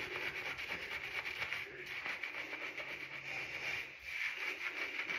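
Fingers scrubbing shampoo lather through wet hair and scalp: a steady, crackly wet rubbing.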